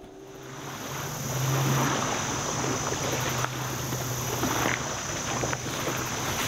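Wind on the microphone at the lakeshore, a steady rushing with a low hum beneath it that rises over the first second, and faint footsteps through brush.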